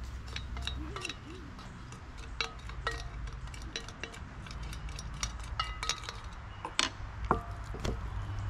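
Spoon clinking and scraping against a small stainless steel bowl while marinade is spooned out, a string of short ringing clinks, the loudest about seven seconds in.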